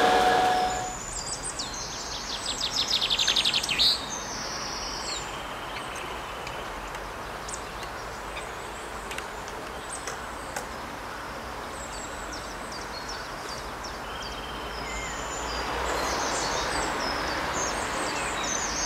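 Songbirds chirping and whistling over a steady rushing background. The loudest call is a rapid trill about two to four seconds in.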